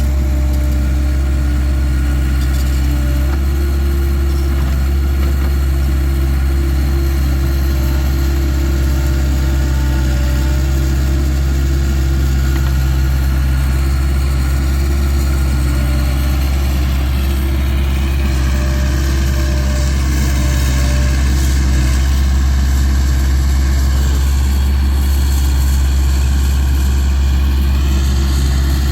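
Takeuchi TL26 skid steer's diesel engine running steadily at a constant speed, with a fainter higher whine that dips and rises in pitch through the second half.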